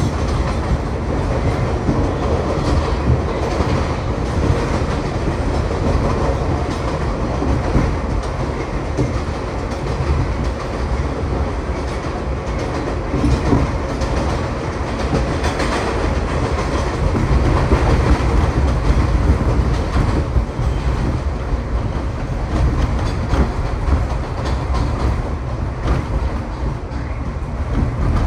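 NYC Subway 3 train, R62 cars, running on elevated track, heard from inside the car: a steady low rumble with continuous clickety-clack of the wheels over rail joints.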